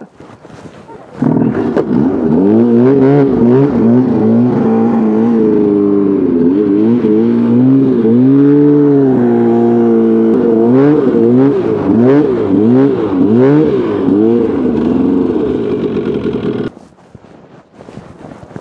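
Snowmobile engine revving up and down again and again as the sled is worked through deep snow. It starts suddenly about a second in and cuts off abruptly near the end.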